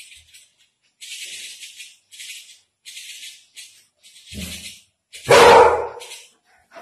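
Short, raspy rattling bursts repeat about once a second, then a dog barks twice near the middle, the second bark the loudest.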